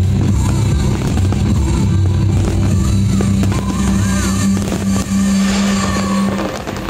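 Music with a long held low note, loudest in the mix, over the bangs of aerial fireworks shells bursting. The held note stops near the end.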